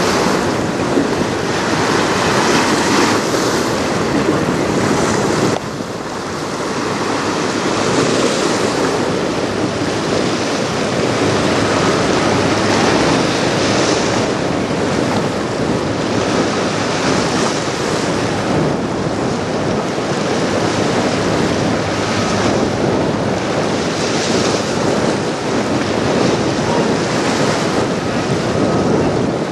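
Wind buffeting the microphone over choppy river water, a steady loud rushing with waves washing, with a short lull about five and a half seconds in.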